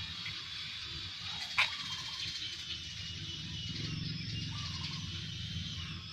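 Puppies tussling over a rag in play, one giving a single short, sharp yip about one and a half seconds in.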